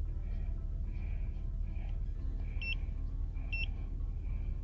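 Two short electronic beeps from an Autophix OM126 OBD2 scanner, a bit over a second apart, as its keypad buttons are pressed, over a steady low hum.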